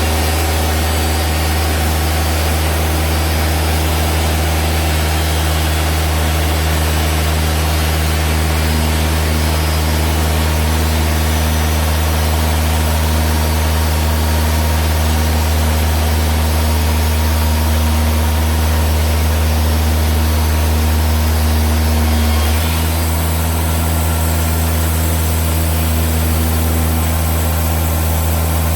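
Band sawmill's engine running steadily under load as the freshly sharpened blade cuts through a red oak log. The engine note shifts slightly about three-quarters of the way through.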